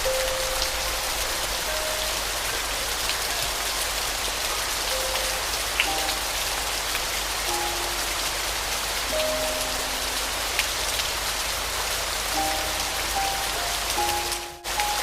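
Steady rain falling, with a slow, soft piano melody of single held notes over it. The sound dips out briefly near the end.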